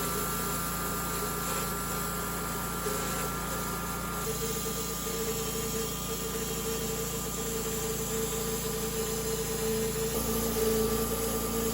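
Homemade sawmill's engine running steadily at a moderate level, its tone changing about four seconds in.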